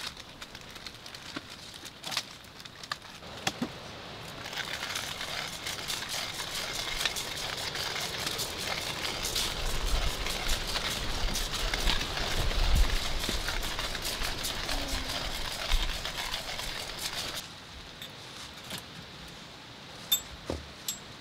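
A strong gust of wind buffeting the hot tent's fabric walls. It builds about four seconds in, rumbles at its height and dies away a few seconds before the end, over the steady crackle and snap of the wood stove fire.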